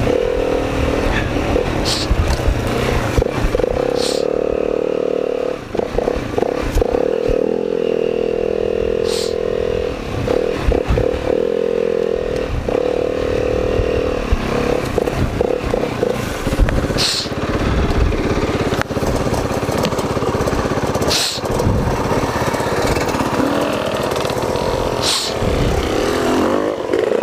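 Dirt bike engine running, its note rising and dropping with the throttle and easing off briefly several times, with scattered knocks and clatter from the bike riding over rocks on a rough woods trail.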